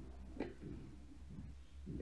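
Faint metallic handling sounds of a bicycle hub's axle and cone being worked into its cup-and-cone bearing, with one sharp click about half a second in.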